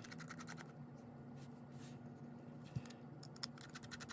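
Faint, scattered small clicks of a small screwdriver working the tiny screws on the side and back of a Contour ROAM3 action camera's housing, over a low steady hum.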